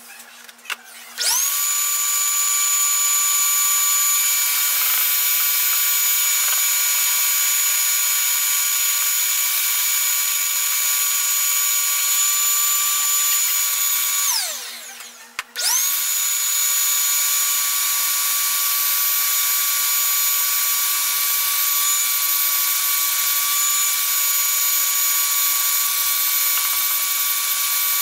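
Shop vacuum running with a steady high motor whine, pulling air through a box of roasted coffee beans to carry off the chaff. It spins up with a rising whine about a second in, winds down and stops about halfway through, then spins up again a second later.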